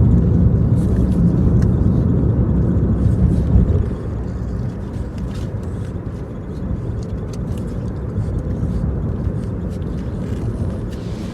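Car interior noise while driving: a steady low rumble of engine and road, easing a little about four seconds in.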